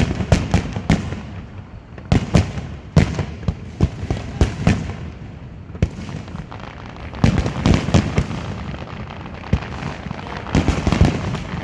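Fireworks display: many sharp bangs and crackles coming in rapid volleys, with short lulls between the volleys.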